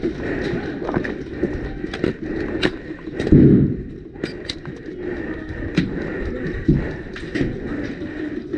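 Footsteps and rattling gear as an airsoft player moves on foot, with scattered sharp snaps of airsoft gunfire and one loud thump a little over three seconds in.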